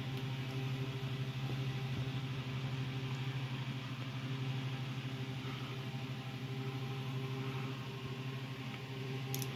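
Steady low hum with a steady hiss, the kind of sound running electrical gear or a ventilation fan makes, with a faint click near the end.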